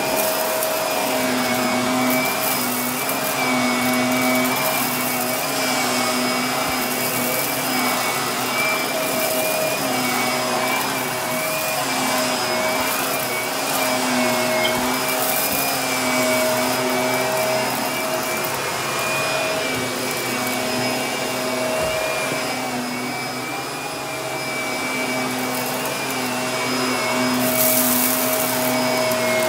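Shark upright vacuum cleaner running steadily on carpet, a constant motor whine over the rush of air, its lower note swelling and fading every second or two as it is pushed back and forth. A brief louder hiss comes near the end.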